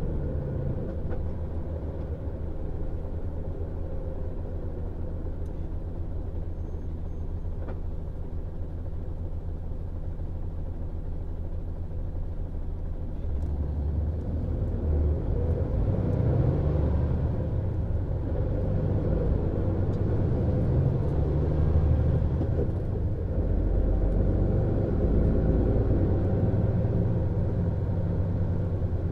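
MAN Lion's Coach diesel engine running with a steady low note, then growing louder and more uneven from about halfway through as it comes under load, its pitch shifting.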